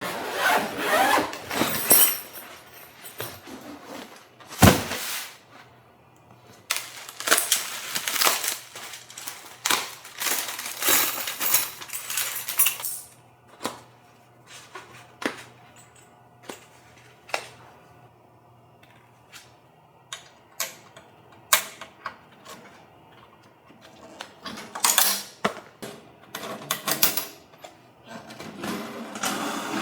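Irregular clinks, knocks and rustles of hard objects being handled, in clusters with quieter gaps. A faint steady hum runs under them for much of the time.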